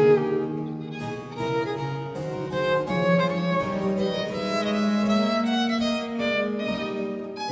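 Baroque chamber music played live: violins in a quick Allegro over a cello bass line and harpsichord continuo.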